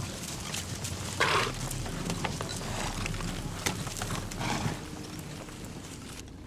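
Several horses galloping on a dirt track, a rapid jumble of hoofbeats, with a louder rushing burst about a second in. The sound drops away just before the end.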